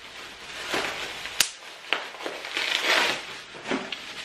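Plastic bubble wrap crinkling and rustling as it is pulled open by hand, with two sharp crackles about a second and a half in and a louder burst of rustling near the three-second mark.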